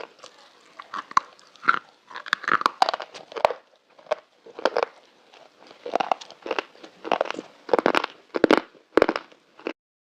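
Close-up crunching as pieces of black slate are bitten and chewed: a string of irregular crisp crunches, some in quick clusters, that stops abruptly near the end.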